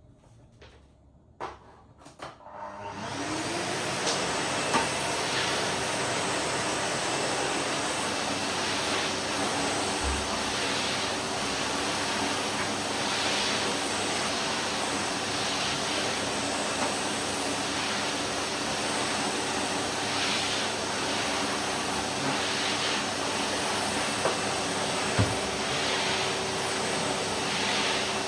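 Vacuum cleaner switched on after a few faint clicks, its motor whining up to speed over about a second, then running steadily with a constant hum and rushing air. Two brief low knocks come about ten and twenty-five seconds in.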